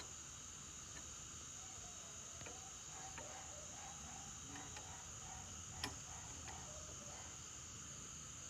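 Crickets trilling steadily at night in a high continuous band, with a few light clicks; one sharper click about six seconds in.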